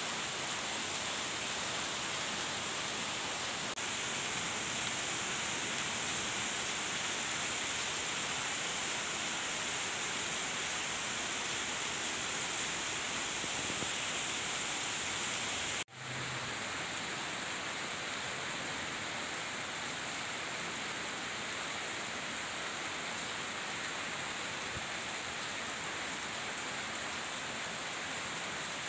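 Steady rain falling, an even hiss with no pauses except a momentary dropout about halfway through.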